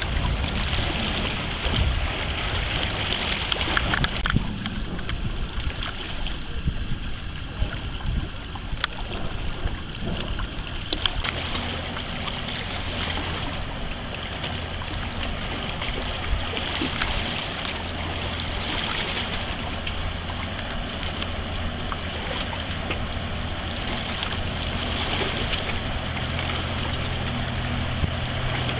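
Wind buffeting the microphone over water noise, then from about twelve seconds in the steady low hum of a car ferry's engines as it passes close by.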